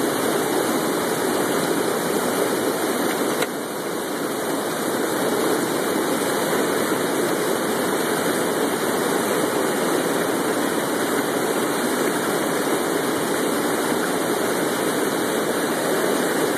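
Water rushing steadily over a dam spillway and churning into whitewater below.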